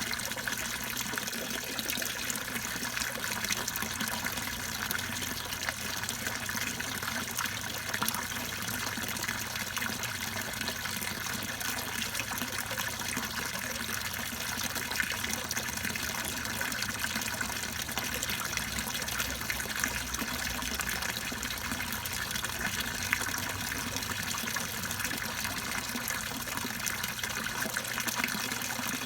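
Water splashing and trickling steadily into a backyard goldfish pond, with a steady low hum underneath.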